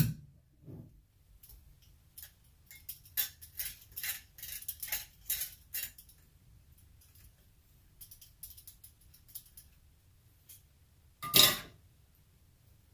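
Small metal clicks and clinks as a metal plate is worked loose and lifted out of an opened JB 6 CFM vacuum pump. They come quickly in the first half and more sparsely later, with a sharp click at the start and a louder knock near the end.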